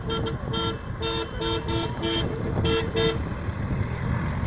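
Vehicle horn sounding a rapid series of short two-note toots, about eight in all, that stop about three seconds in, over the low rumble of engines.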